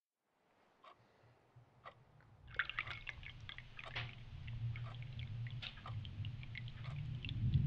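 Liquid poured from a small pot into a china cup, with small clinks of crockery and drips. Underneath runs a low rumbling drone that grows louder toward the end.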